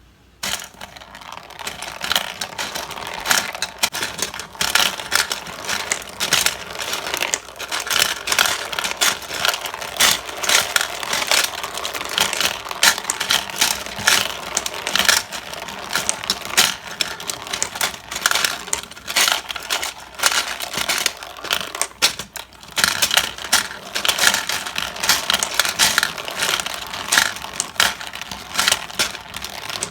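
Small hard plastic objects clattering and rattling together continuously, a dense run of irregular clicks, like toy capsules and small toys being jostled or poured.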